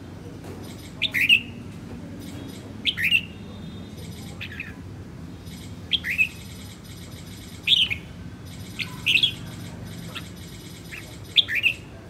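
Caged red-whiskered bulbul giving short chirping calls, one every second or two, each a quick sweeping note or two, about seven in all.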